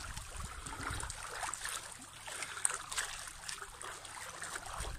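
Pool water sloshing and splashing as a person sweeps both arms through it in breaststroke-style arm strokes.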